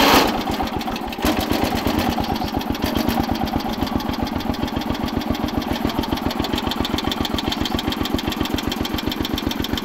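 Old Briggs & Stratton engine on a riding lawn mower, just started and running, busier for the first second, then settling into a steady, even idle. It knocks a little because it is cold.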